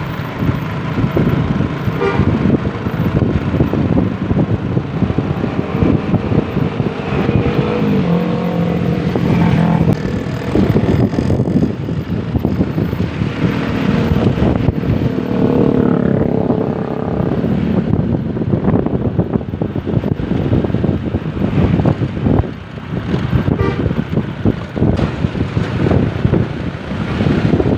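A bus's basuri telolet horn playing short melodic phrases that step through several notes, twice, over loud, continuous road and vehicle noise.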